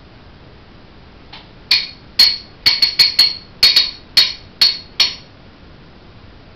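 A spoon clinking against a bowl of porridge as it is stirred: about a dozen sharp, ringing clinks in quick, uneven succession, stopping about five seconds in.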